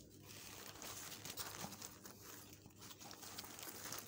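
Rustling and crinkling of a nylon backpack being handled and turned over in the hands, a steady run of small crackles.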